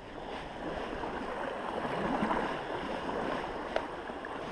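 Sea water lapping and washing in the shallows, a steady wash that slowly swells, with one sharp click a little before the end.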